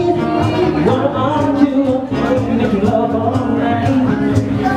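Live acoustic band music: singing over acoustic guitar and bass guitar accompaniment.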